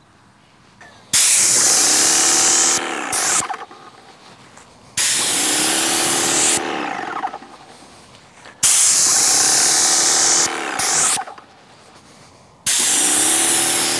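A paint spray gun laying polyurethane onto wooden stair treads in four trigger pulls of about two seconds each. Each pull is a loud hiss with a hum underneath that drops in pitch as the trigger is let go.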